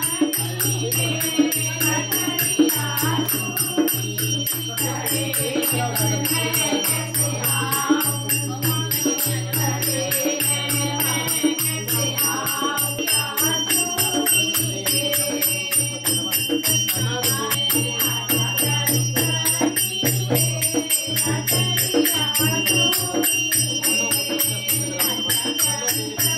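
Devotional group singing over a steady low hum, with jingling percussion keeping an even beat.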